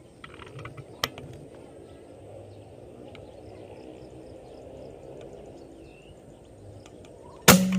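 A single sharp air rifle shot near the end, by far the loudest sound, over a quiet outdoor background with a small click about a second in.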